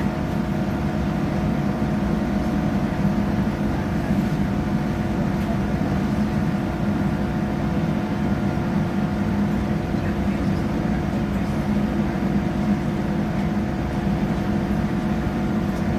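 Inside a passenger train carriage: a steady rumble with a constant engine hum, with no change in pitch or level.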